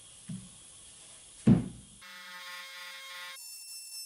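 A steel axe head is set down on a rubber bench mat: a light knock, then a heavier knock about a second and a half in. From about halfway a handheld rotary tool buzzes with a steady whine, shifting to a higher, pulsing buzz near the end as its fine engraving bit cuts into the steel.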